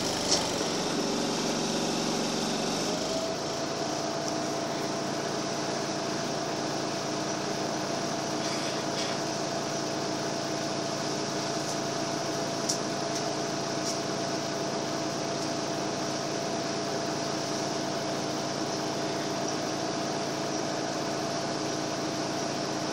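Cabin noise inside a Karosa B941E articulated city bus standing in traffic: the diesel engine's note shifts and settles about three seconds in, then a steady idling drone with a constant hum. A sharp click comes just after the start, and another near the middle.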